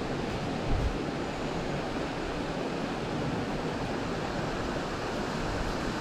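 Steady rushing of a shallow, fast-flowing river, with wind rumbling on the microphone now and then.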